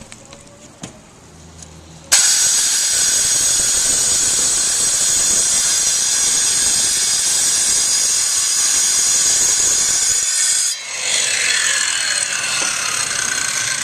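Power grinder with a masonry blade cutting a reglet groove into a chimney's brick mortar joint for the counter flashing. It starts suddenly about two seconds in with a loud, high whine, dips briefly near the end, then cuts on as the whine slides down in pitch under load.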